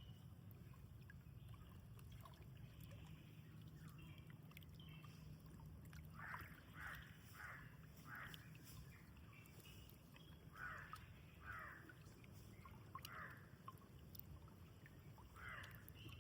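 Faint bird calls, short and falling in pitch, repeated in small groups from about six seconds in, over a low steady hum.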